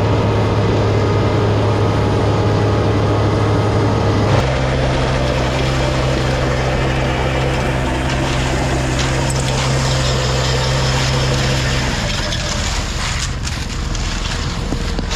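Engine running steadily at a fixed speed, its pitch stepping up suddenly about four seconds in and dropping back near the end.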